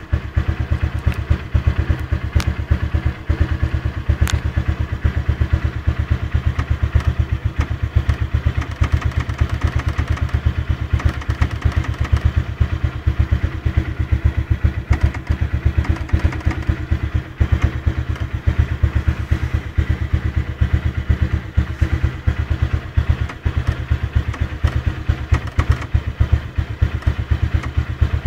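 Honda CBF 150's single-cylinder four-stroke engine idling steadily, with an even, rapid beat.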